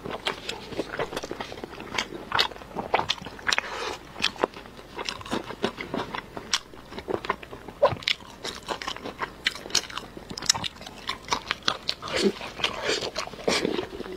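Close-miked mouth sounds of a person biting and chewing braised pork belly: a dense, irregular run of short smacks and clicks from the lips, teeth and fatty meat.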